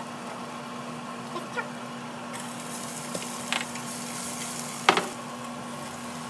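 Garlic and shrimp sizzling in oil in a nonstick pot while a silicone spatula stirs, with a few sharp clacks against the pot, the loudest about five seconds in. A low steady hum runs underneath.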